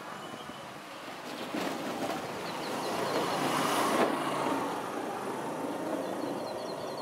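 A motor scooter passes close by, its engine noise swelling to its loudest about four seconds in and then fading. Small birds chirp faintly.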